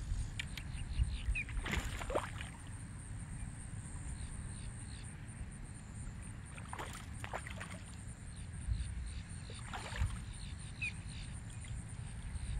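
Water splashing a few times, short and separate, as a hooked largemouth bass is played at the surface on a fly line and brought to hand, over a low wind rumble on the microphone.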